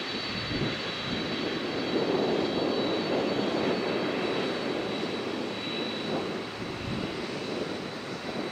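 Boeing 747 freighter's four jet engines running as it taxis, a steady rushing noise with a thin high whine over it.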